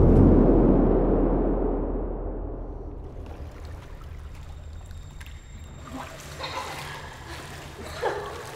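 A loud, muffled low rumble dies away over the first three seconds, giving way to pool water sloshing and splashing as a body breaks the surface, with a short louder burst near the end.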